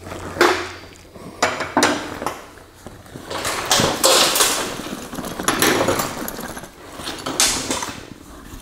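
Hand tools clattering onto a diamond-plate steel table as a tool bag is turned over and shaken out, in a string of separate metallic clatters with the bag's fabric rustling in between.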